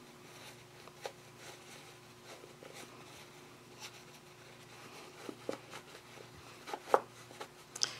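Cotton fabric with stiff interfacing being handled and turned right side out: soft rustling and light scraping of cloth, with a few small sharp ticks, the loudest near the end. A faint steady hum runs underneath.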